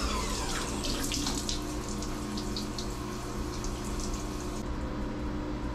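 Flood coolant pouring and splashing onto a CNC mill's table inside the enclosure, over the machine's steady hum. The coolant flow cuts off near the end.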